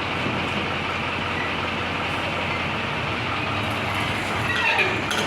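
Heavy diesel engine running steadily, a constant low rumbling drone.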